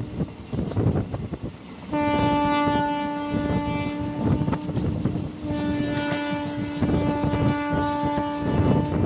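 WAP-4 electric locomotive's horn sounding two long steady blasts about a second apart, over the rumble and clickety-clack of ICF coach wheels on the rails.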